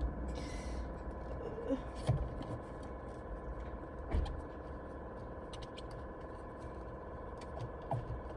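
Faint scattered clicks and scrapes of a screwdriver and small screws being worked at the steering wheel, with a few light knocks, over a steady electrical hum.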